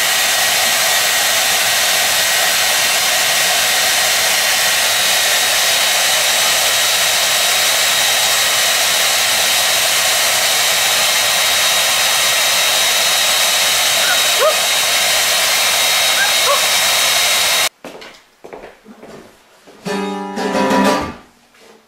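Handheld hair dryer running steadily: a loud, even rush of air with a high motor whine, which cuts off suddenly near the end. A short acoustic guitar strum follows.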